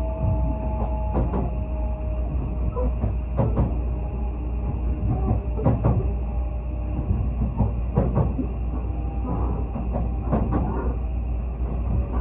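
Odakyu Romancecar electric express train running on the line: a steady low rumble with irregular knocks from the wheels every second or two, and a faint tone that fades out about two seconds in.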